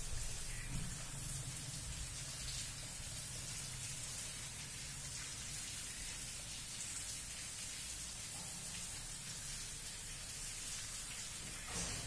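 Steady rain falling, an even hiss over a low rumble.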